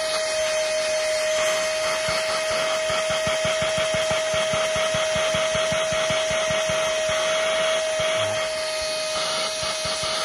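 Tamashio cordless handheld vacuum cleaner/blower running at full speed: a steady high whine from its small motor over the rush of air, strong airflow.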